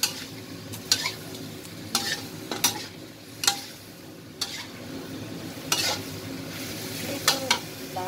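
Pork belly cubes sizzling in a stainless steel pan while being stirred, the utensil knocking and scraping against the pan about once a second.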